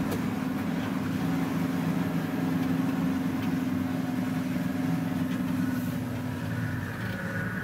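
Engine of an open safari game-drive vehicle running steadily as it drives along a dirt track, with a low, even engine note and road noise.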